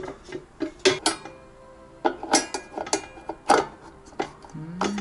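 Clacks and knocks of a new air fryer's parts being handled: its inner pot, perforated tray and lid knocking together, a handful of sharp clacks about a second apart.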